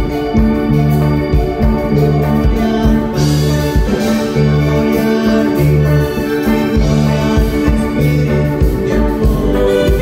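Live band music over a PA system: an electronic keyboard with an organ sound over heavy, repeating bass notes and a steady drum beat.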